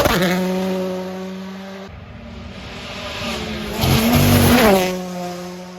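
WRC Rally1 cars, with 1.6-litre turbocharged four-cylinder engines, passing at full throttle. One sweeps past right at the start and holds a steady high engine note as it goes away. The sound cuts about two seconds in, and a second car comes up and passes loudly around four seconds in, then holds a steady note as it fades.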